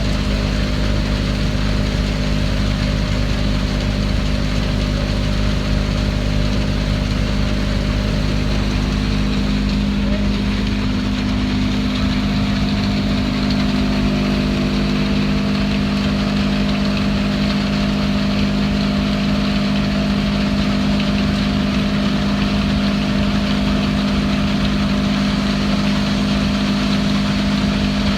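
An engine running steadily at constant speed, with a slight shift in its tone about halfway through.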